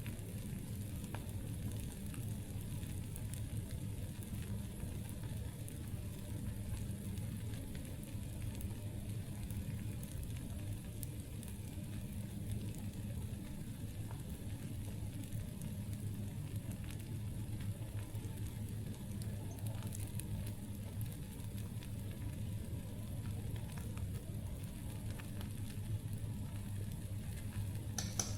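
Wood campfire crackling: scattered small pops and snaps over a steady background, with a sharper pop near the end.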